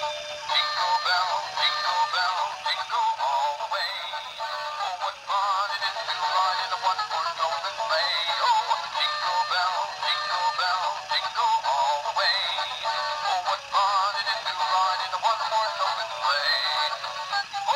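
Musical plush penguin toy playing a Christmas song through its built-in speaker: high-pitched singing over music, thin and with no bass.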